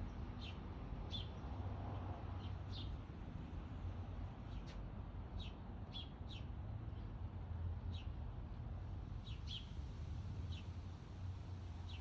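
A small songbird giving short, high chirps, about a dozen at uneven intervals, over a steady low hum.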